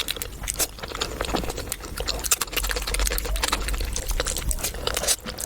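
Close-miked eating sounds: wet chewing, lip smacking and squelching of a mouthful of mutton curry, a rapid, irregular run of sticky clicks.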